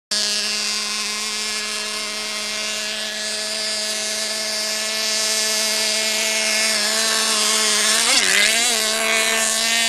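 Small .12-size two-stroke glow (nitro) engine of a home-made RC rigger boat running at high speed with a steady, high-pitched whine. About eight seconds in, the pitch dips and wavers briefly before settling again.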